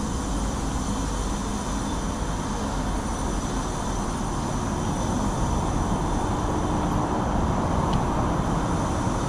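Steady mechanical rumble with a few faint, steady high whines running through it, typical of factory plant machinery.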